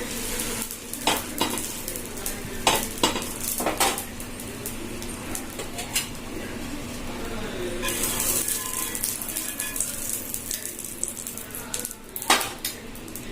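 Buttered bread sandwich sizzling as it toasts in a pan. Sharp clicks and scrapes of a spatula against the pan come now and then, the loudest near the end.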